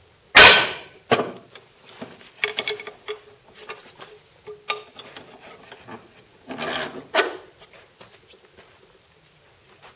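A hammer blow on a steel steering tie rod held in a vise, loud and ringing briefly, shortly after the start. Smaller metallic clinks and scraping of the part and tools being handled follow, with a louder clatter about two-thirds of the way through.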